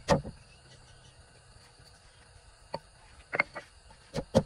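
Wooden pestle pounding in a large earthenware mortar: one thud at the start, a pause, a few scattered knocks past the middle, then steady rapid pounding resumes near the end at about five strokes a second.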